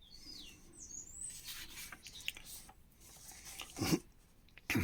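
Paper magazine pages rustling as they are handled and turned, with two low thumps near the end; two short high chirps glide in pitch in the first second.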